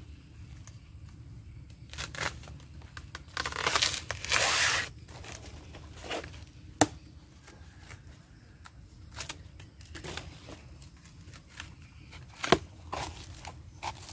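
A knife cutting into a banana plant's soft, fibrous trunk, with the layered sheaths ripping. A loud tearing comes about three to five seconds in, amid smaller cuts and rustles, and there are two sharp knocks, one near the middle and one near the end.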